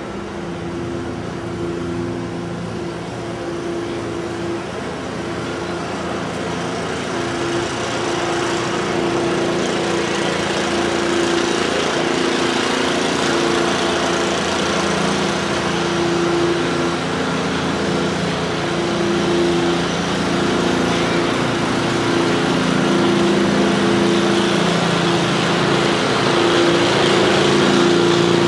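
An engine running steadily, its pitch wavering slightly, slowly growing louder.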